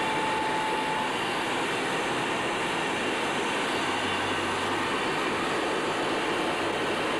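Steady cockpit noise of a Panavia Tornado GR1 in flight: airflow and its two RB199 turbofan engines running at an even level. A thin steady tone sounds for about the first second.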